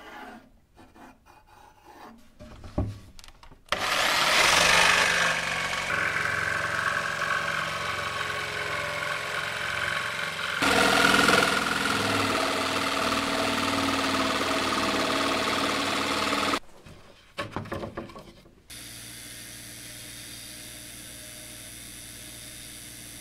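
Electric jigsaw cutting through plywood, running loud for about thirteen seconds from about four seconds in. After a few knocks, a metal lathe runs with a steady hum near the end as a drill bit bores into aluminium stock.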